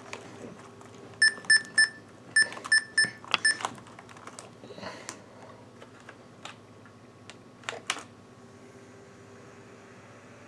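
IBM ThinkPad 600E laptop beeping from its built-in speaker: three short high beeps, then four more, among light key clicks. A few separate sharp clicks of keys follow, the loudest two near the end.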